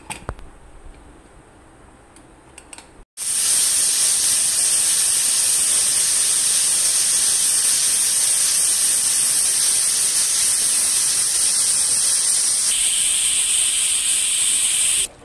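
Aluminium stovetop pressure cooker venting steam through its weight valve in a loud, steady hiss that starts suddenly about three seconds in; the cooker is up to full pressure.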